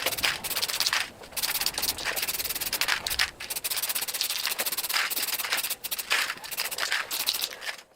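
Wire brush scrubbing the metal exhaust of a Briggs and Stratton lawnmower engine, a dense rapid scratching with a few brief pauses, to clean it back before a coat of heat-resistant paint. It cuts off abruptly near the end.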